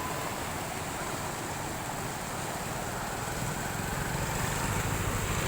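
Heavy rain pouring steadily, with a low rumble that grows louder in the second half.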